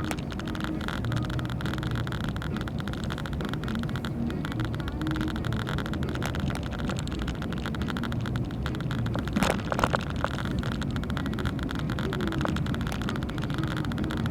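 Car driving, heard from inside the cabin: a steady low engine and road rumble with tyre hiss. Two short knocks come close together about two-thirds of the way through.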